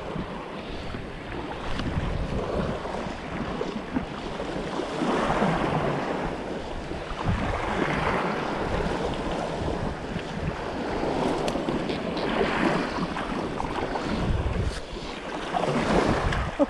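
Small surf breaking and washing up a sandy beach, mixed with wind buffeting the microphone. The noise rises and falls every few seconds.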